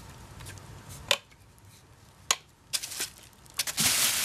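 A few light clicks and knocks as hard parts are handled, then plastic bubble wrap crinkling and rustling loudly from about three and a half seconds in.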